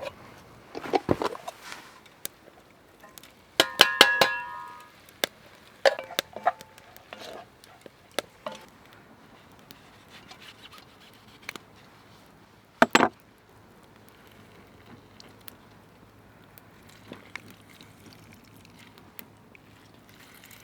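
Metal cookware clinking and knocking: scattered taps of a utensil against a pot, with a ringing clang about four seconds in and a single heavier knock about thirteen seconds in.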